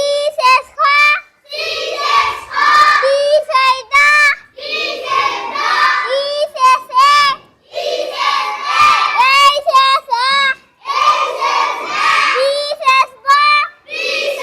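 A group of children chanting together in short repeated phrases, each followed by a few short syllables that rise in pitch, in a steady call-and-repeat rhythm of letter sounds.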